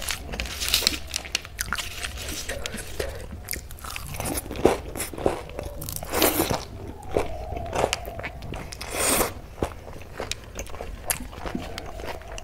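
Close-up crunching and chewing of rice and dal mixed with crushed moong dal papad, eaten by hand, with crisp crackles of the papad as it is squeezed and bitten.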